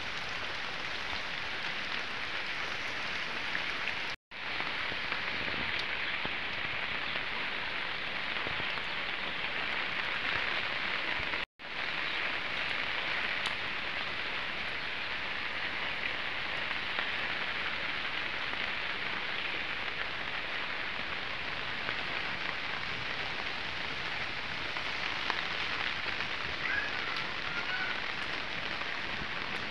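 Steady rain falling on garden leaves and ground, an even hiss that cuts out for an instant twice, about 4 and 11 seconds in.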